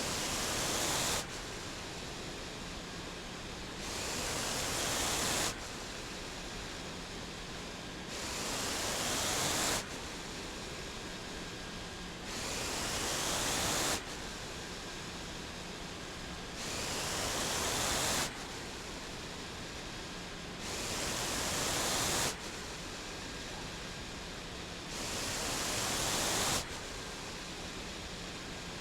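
Mechanical ventilator breathing for a person through a tracheostomy tube, cycling steadily. About every four seconds a hiss of air swells for about a second and a half and then cuts off sharply, over a steady lower hiss.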